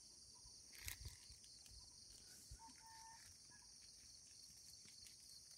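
Faint, steady, high-pitched insect chorus over near silence, with a soft bump about a second in.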